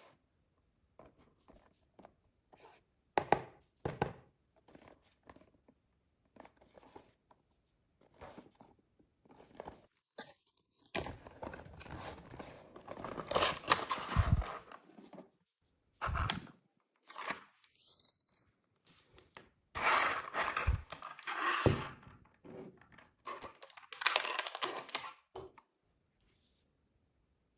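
Packaging being handled and torn open: irregular bursts of tearing and crinkling with a few knocks, busiest about halfway through and again later.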